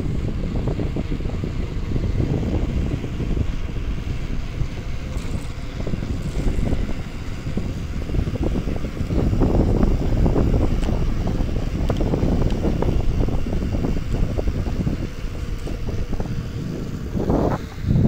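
Wind buffeting the microphone of a moving mountain bike on an asphalt road, a rough low rumble that gusts louder for a few seconds in the middle and again near the end.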